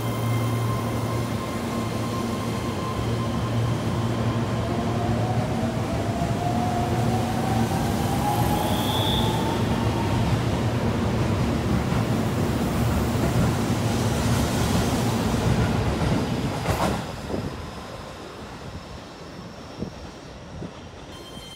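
Keihan 3000 series electric train pulling out of the station, its traction motors giving a whine that climbs in pitch as it accelerates, over the rumble of the wheels on the rails. The sound drops away suddenly near the end as the last car clears.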